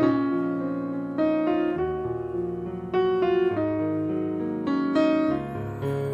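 Slow background piano music, with chords struck every second or two, each ringing and fading before the next.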